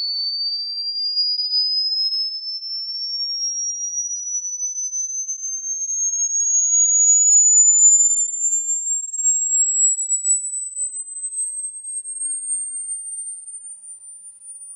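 Electronic pure sine tone sweeping slowly and evenly upward in pitch from high to very high. It is played as a supposed rodent-repellent sound meant to drive away mice and rats.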